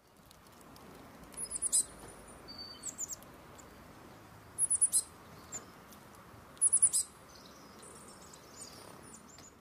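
Small songbirds calling: several short clusters of high, thin chirps a second or two apart, the loudest bunches a little before and a little after the middle, over faint outdoor background hiss.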